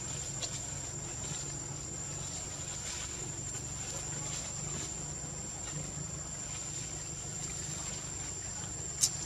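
Insects making a steady, high-pitched drone over a low background rumble, with one sharp click near the end.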